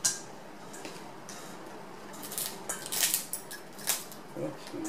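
Metal crab cracker and cutlery clicking and scraping against steamed crab shells and plates. Scattered sharp clicks come through, with a busier run of them in the middle.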